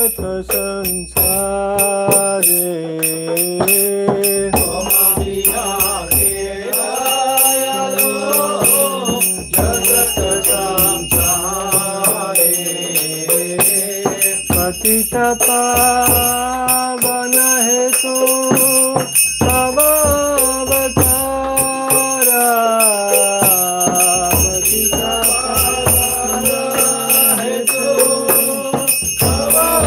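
A small hand bell rung continuously in rapid shakes, over a slow sung devotional melody that bends and holds its notes.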